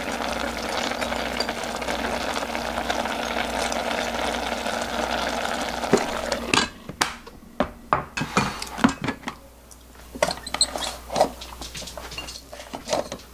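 Rice and water boiling in an open electric rice cooker's inner pot, a steady bubbling hiss that stops about six and a half seconds in. After that come scattered light clinks and knocks of dishes and utensils.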